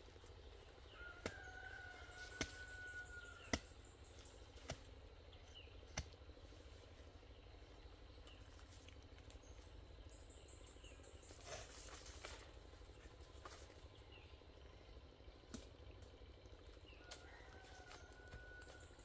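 Quiet outdoor ambience with a distant bird calling twice, each a long, nearly level note. A few sharp clicks or snaps come in the first seconds.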